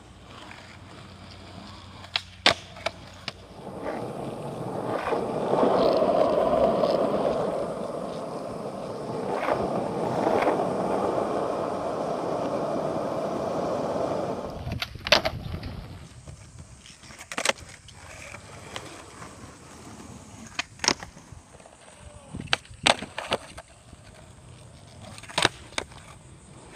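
Skateboard wheels rolling on rough asphalt, a gritty rumble for about ten seconds, then several sharp clacks of the board striking the pavement, spread over the rest of the time.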